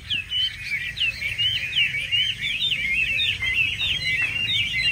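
Caged Chinese hwamei (Vietnamese họa mi) singing: a fast, unbroken run of varied, sliding whistled notes.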